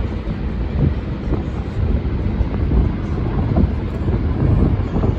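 Wind buffeting the microphone aboard a tour boat, over a steady low rumble.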